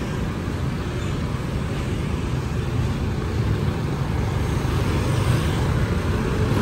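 Forklift engine running as the truck drives closer, a steady low rumble that slowly grows louder, with motorbike and truck traffic on the road.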